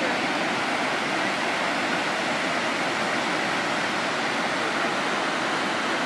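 Water rushing steadily over sandstone ledges and through shallow pools, the continuous sound of a small waterfall cascade.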